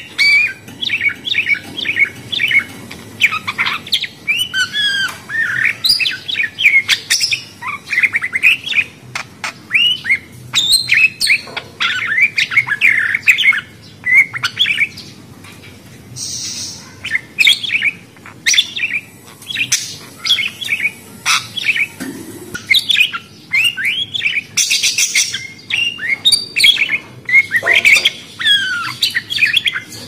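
Small pet parrots chattering: a rapid, nearly unbroken run of chirps, short rising and falling whistles and squawks.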